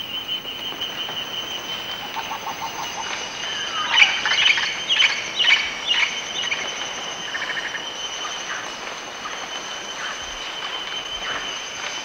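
Rainforest ambience: a steady high insect drone runs throughout. About four seconds in, a bird gives a quick series of about six loud descending calls, and a few fainter calls follow later.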